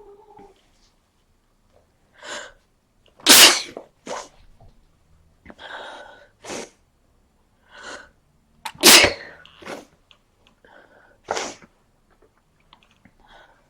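A person with a cold sneezing repeatedly: two loud sneezes about three and nine seconds in and a third, slightly weaker one about eleven seconds in, with shorter, quieter bursts between them.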